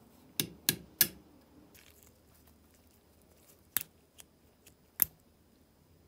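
Sharp metal-on-metal clicks as steel pliers work on small brass lighter parts held in a vise. Three come in quick succession in the first second, and two more follow a few seconds later, with faint ticks between.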